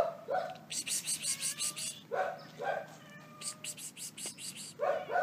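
Domestic cat meowing several times in short calls as it is coaxed toward its owner, with a quick run of sharp clicking sounds in between, about a second in.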